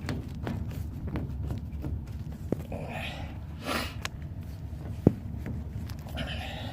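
Soft rubber condensate drain hose being handled and pushed onto its fitting: rustling and scraping with scattered small clicks and knocks, the sharpest about five seconds in.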